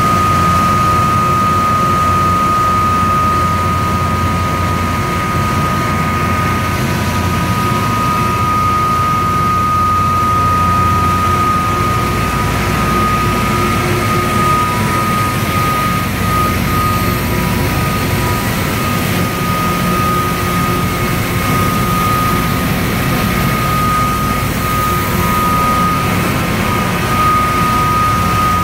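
Erema RM160E plastic recycling extrusion and pelletizing line running: loud, steady machine noise with a high, steady whine over a low hum.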